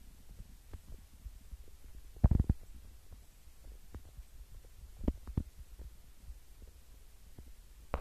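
Low rumble on the microphone with a few dull thumps: the loudest about two seconds in, two more a little after five seconds, and one at the end.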